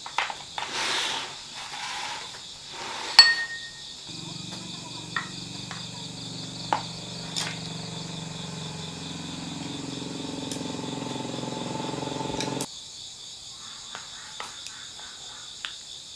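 Crickets chirping steadily at night, with a few sharp clicks of chopsticks and bowls. A steady low hum comes in about four seconds in and cuts off abruptly about two-thirds of the way through.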